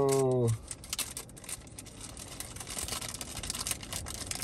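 A voice holding a long drawn-out note stops about half a second in. After that comes the crinkling and rustling of a clear plastic bag handled by hand as a small capsule-toy prize is unwrapped.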